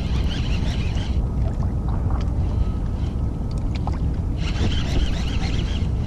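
Wind rumbling on the microphone throughout. Over it, a baitcasting reel is cranked in two spells, a whirring retrieve that pauses for about three seconds in the middle.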